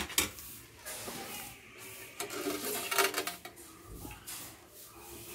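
A metal spoon scraping and clinking against the inside of a metal pot while masala is scooped out, in scattered clicks with a busier clatter about halfway through.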